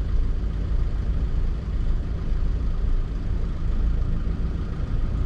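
Motorhome's diesel engine idling steadily, a low, even engine noise with no change in speed.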